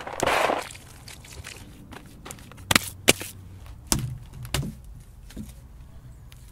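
Hands scooping crushed red rock, a gritty rustle for the first half second. Then a few sharp knocks and thuds as a lump of wet clay is handled and pressed down on a stone.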